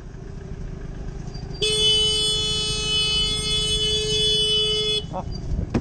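A single-note vehicle horn sounds about a second and a half in and is held steadily for about three and a half seconds before cutting off, over low engine and street-traffic noise.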